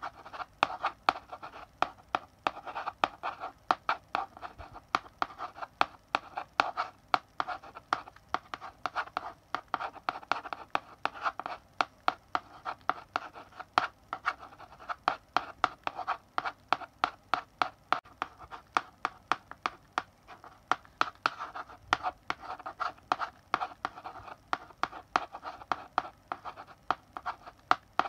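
Chalk writing on a blackboard: a steady run of sharp taps as the chalk strikes the board, between short scratching strokes.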